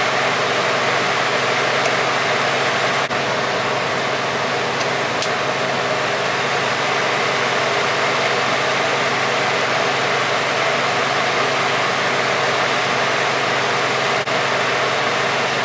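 A pickup truck's engine idling steadily with its hood open, running as the donor vehicle for a jump-start, with a few faint clicks.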